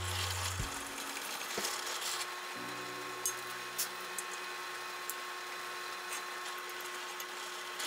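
A few light clinks and knocks as aluminum parts are set down and a drill-press vise is shifted on the table, over a steady hum. Quiet background music with low held chords runs underneath.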